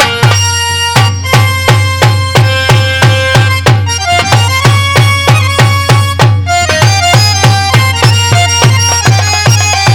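Instrumental interlude of dhola folk music. A drum is struck in a steady beat of about three strokes a second, each deep stroke sliding down in pitch, under a reed instrument playing a held melody.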